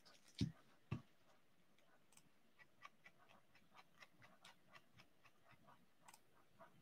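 Near silence, with two soft thumps in the first second and faint scattered ticks after them: a foil-wrapped hockey card pack being handled.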